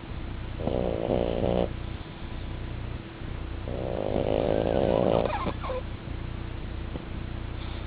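A flat-faced dog snoring in its sleep: two snores, one about a second in and a longer, louder one around the middle.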